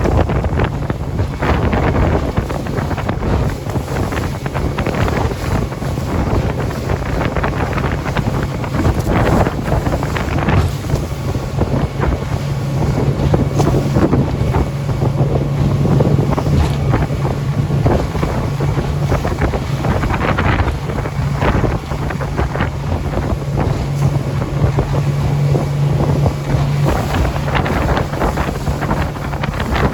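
A motorboat's engine running steadily under way, a constant low hum, with wind buffeting the microphone and water rushing past the hull.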